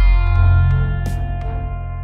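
Intro music: a held chord over a deep bass note, slowly fading, with a few light ticks on top.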